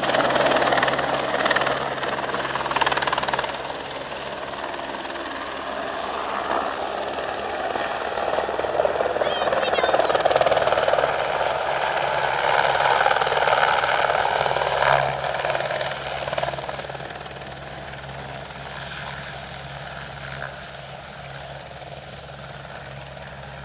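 Airbus AS350 helicopter's rotor and single turbine engine as it comes in to land: a steady roar over a low hum, loudest in the middle, growing quieter over the last several seconds as it settles onto the field.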